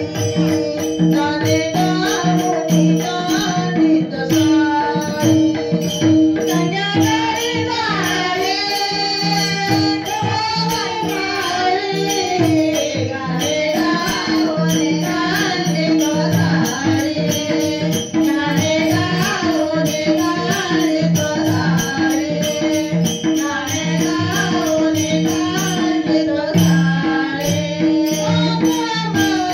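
Marathi devotional bhajan music: a bending melodic line over steady held drone tones, with a continuous jingling percussion rhythm, typical of a bhajan group's hand cymbals and drum.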